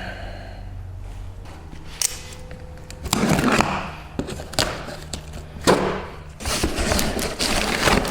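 Thuds and knocks of brake parts and hand tools, with rough scraping in between, while the truck's rusted front brake is being worked on.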